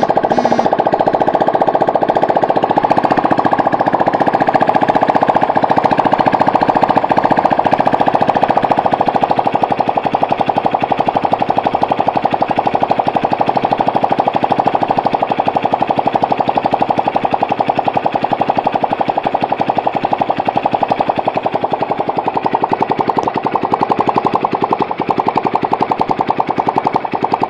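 Honda C70 motorcycle's single-cylinder four-stroke engine, fitted with a Honda GL cylinder block and head, running fast with a rapid, even string of exhaust pulses. It gets a little quieter from about ten seconds in.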